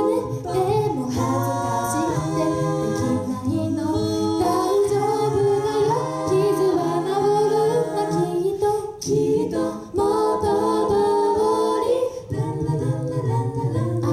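A five-voice mixed a cappella group singing in harmony through handheld microphones, a low bass part held under the upper voices. The singing breaks off briefly twice, about ten and twelve seconds in.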